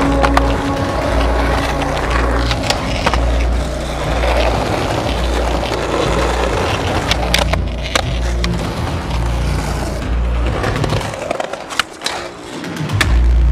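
Skateboard wheels rolling on concrete with repeated sharp clicks of the board's tail pops and landings, over a music track with a pulsing bass line.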